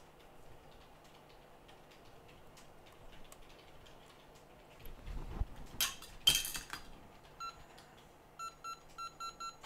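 A few sharp metallic clinks and knocks from tweezers and the metal reballing stencil being handled, the loudest a little past the middle. Then an electronic beeper on the repair bench starts sounding short, high beeps, about three a second near the end.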